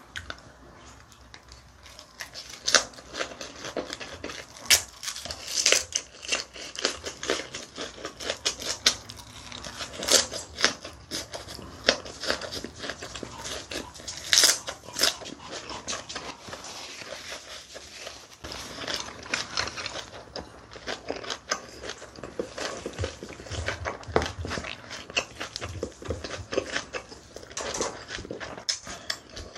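Close-miked eating sounds: crisp crunching and wet chewing of a raw napa cabbage leaf wrapped around sliced pork belly, with irregular crunches throughout.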